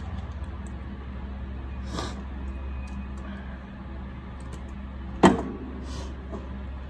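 Light handling noise of wires and small tools on a wooden work table: a few faint clicks and one sharp knock about five seconds in, over a steady low hum.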